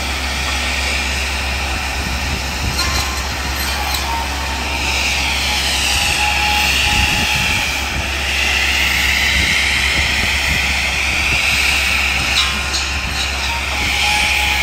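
Tree-trimming machine with a long boom-mounted saw running: a steady mechanical din with a high whine that slowly rises and falls several times, and a few faint clicks.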